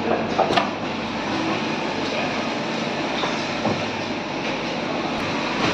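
Richpeace single-head automatic sewing machine running, a steady rapid mechanical clatter with a few sharp clicks, one about half a second in and one near the end.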